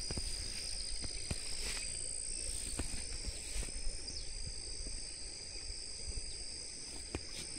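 Steady high-pitched insect chirring over the low, even rush of a muddy river running full after heavy rain, with a few faint clicks.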